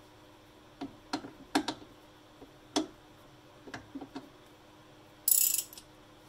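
Light metal clinks and knocks as a sway bar end link is worked at its strut bracket, then a ratchet clicking through one quick stroke near the end.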